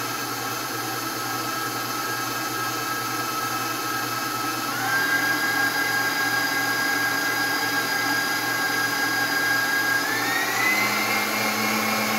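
KitchenAid Professional 5 Plus stand mixer running empty, a steady motor and gear whine that steps up in pitch about five seconds in and again about ten seconds in as the speed lever is moved to higher settings. It sounds much better, running smoothly after a rebuild with a new worm gear, gears, front sleeve bearing, transmission housing and fresh grease.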